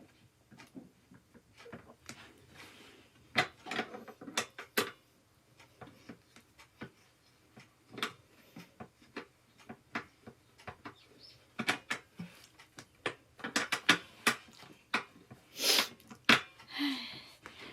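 Irregular clicks, taps and knocks of gaming-chair parts and fittings being handled and put together during assembly, with denser, louder clusters about a third of the way in and again past the middle.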